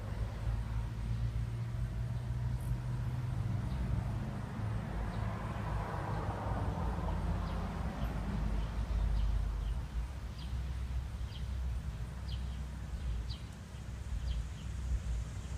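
Outdoor ambience: a steady low rumble with a run of short, high chirps, about one or two a second, starting a few seconds in.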